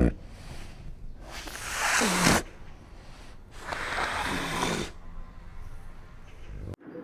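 An animal's two long, noisy breaths, a couple of seconds apart, the first ending in a short falling tone; the sound cuts off suddenly near the end.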